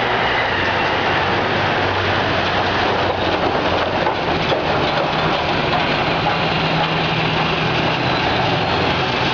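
Heavy military vehicles on the move, engines running loudly and steadily over a dense rumbling noise, with the engine note shifting a little partway through.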